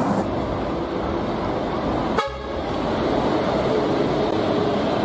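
Intercity bus horns tooting over road traffic noise, with a brief break about two seconds in.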